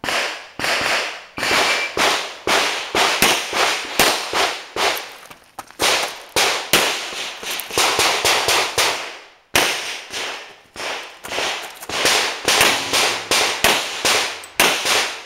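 Handgun shots fired in rapid strings, often in quick pairs, with short pauses between strings and a longer lull about nine and a half seconds in.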